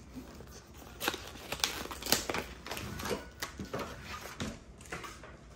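Stacked clear plastic compartment trays being slid out of a cardboard sleeve and handled: an irregular run of plastic clicks, knocks and packaging rustle, starting about a second in.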